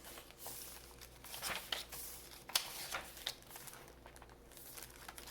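Papers of a handmade journal being handled and turned, rustling and crinkling in irregular short bursts.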